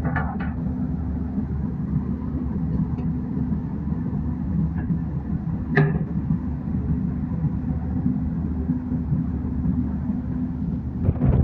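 Heavy diesel engine, such as an excavator's, running steadily at a low rumble, with a single sharp metallic knock about halfway through.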